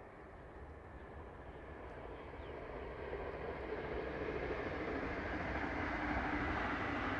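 Distant steam locomotive 3801, a NSW 38 class 4-6-2, working hard with a passenger train, its exhaust and running noise growing steadily louder as it approaches.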